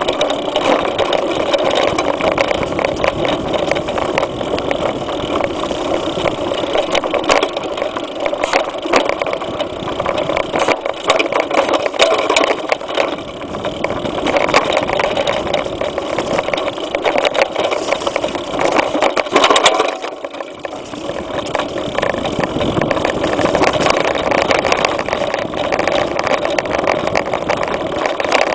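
Mountain bike riding fast over a dirt forest trail: a steady rush of wind on the microphone, broken by frequent clattering knocks as the bike and its mount rattle over bumps. It briefly eases off about twenty seconds in.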